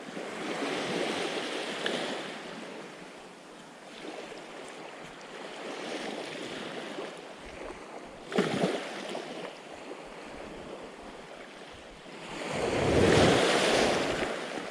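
Sea waves washing against a rocky shore, swelling and fading in surges, with the biggest surge near the end. A short sharp splash-like hit comes about halfway through.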